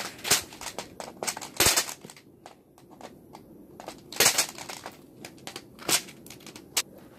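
Plastic keycaps being pried and popped off a computer keyboard: irregular sharp plastic clicks and snaps, with handling rustle between them.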